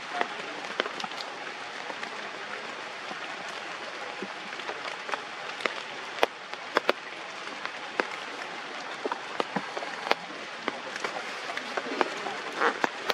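Rain falling on forest leaves: a steady hiss with many scattered, sharp drops landing close by.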